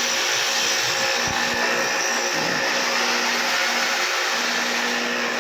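Electric grinder clamped in a lathe, running steadily with an even, unbroken whir.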